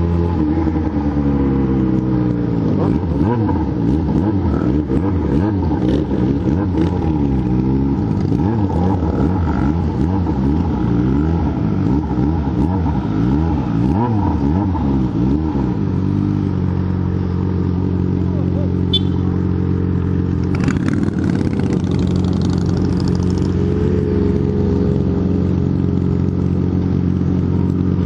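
Yamaha XJ6 N inline-four engine and other motorcycles running at low speed together, their pitches rising and falling against each other. A bit over halfway in, the sound settles into a single engine idling steadily.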